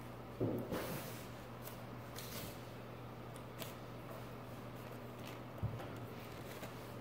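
Faint tabletop handling noises: soft rustling of paper and small knocks as seedlings in soil blocks are handled. There is a light thump about half a second in and another near the end, over a steady low room hum.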